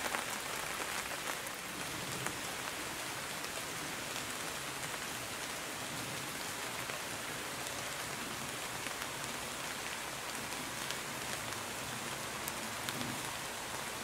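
Rain falling steadily, an even hiss with scattered small drop ticks.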